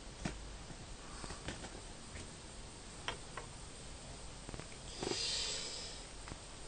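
Faint scattered clicks and small knocks of handling, with a brief hiss about five seconds in as a long gas lighter is brought up to the model engine.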